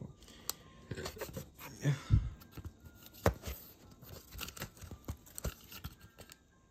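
Hands handling a corrugated-cardboard model garage held together with tape: scattered rustles, scrapes and light taps, with a louder thump about two seconds in and a sharp click a little after three seconds.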